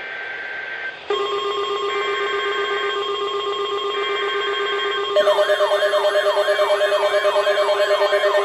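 NOAA Weather Radio alert tones: three roughly one-second screeching SAME data bursts with short gaps, over a steady alarm tone that comes in about a second in. About five seconds in, a louder warbling siren-style alarm from a weather radio receiver starts, sweeping about three times a second.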